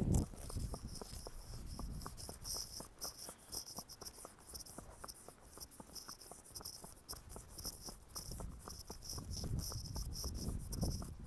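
A horse's hooves clip-clopping at a walk on a paved lane, a regular beat of sharp strikes. Behind it runs a high-pitched, pulsing chorus.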